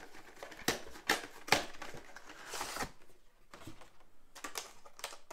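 Cardboard collection box being opened by hand: the outer sleeve slid off and the clear plastic card tray lifted out. There are several sharp taps and knocks in the first two seconds, a brief rustle of cardboard sliding, then a few small plastic clicks.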